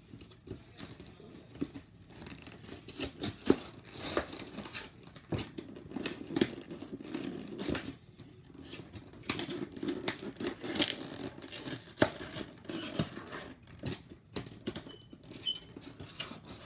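A cardboard trading-card box being unwrapped and opened by hand: irregular crinkling and tearing of its wrapping and cardboard, with small clicks and knocks as it is handled.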